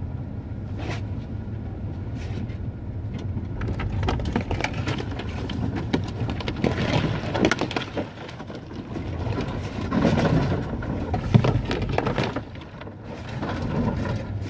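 Car rolling slowly over a snow-covered road, heard from inside the cabin: a steady low rumble with many crackles and crunches from the tyres on the snow and ice, busiest in the middle of the stretch.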